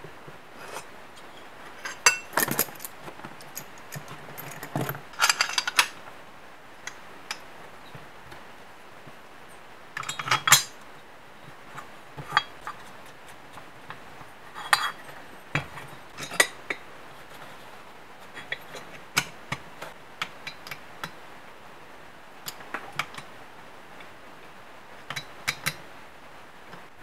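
Scattered light metallic clinks, knocks and short scrapes of a finned two-stroke cylinder being handled and fitted onto a metal mounting plate, with nuts and studs being worked by hand. The clinks come in small irregular clusters, the busiest a few seconds in and again about ten seconds in.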